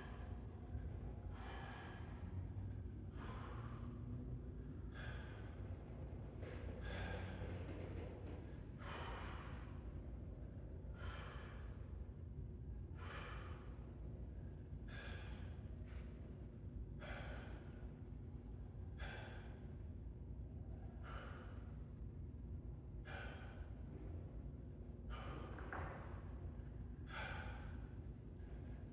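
A man breathing hard from exertion during a shadow-boxing interval, with a heavy exhale about every two seconds over a steady low hum.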